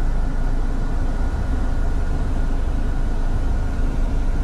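Car engine and road noise heard from inside the cabin: a steady low rumble.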